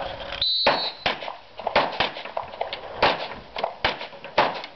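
A shot timer's high electronic beep, about half a second long, then a rapid run of handgun shots from two shooters firing at once, a dozen or so sharp cracks in quick, uneven succession.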